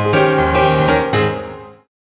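Background music of keyboard chords, a new chord struck about a second in, then fading out to silence near the end.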